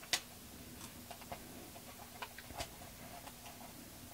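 Faint, scattered light clicks and taps as a cardstock paper-doll cutout is handled against a paper journal page, with the clearest click just after the start.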